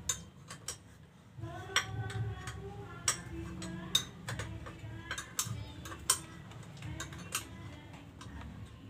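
Sharp metallic clicks and clinks from motorcycle rear-sprocket and chain parts being handled and fitted, about eight of them at irregular intervals of roughly a second.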